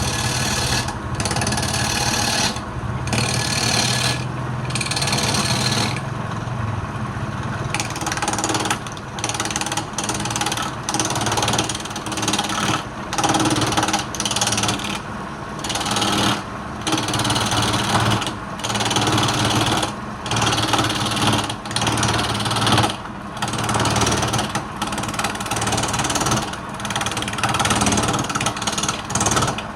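Wood lathe running with a turning tool cutting into the spinning wood in short, repeated passes: a steady motor hum under a rough scraping noise that keeps breaking off for a moment as the tool is lifted.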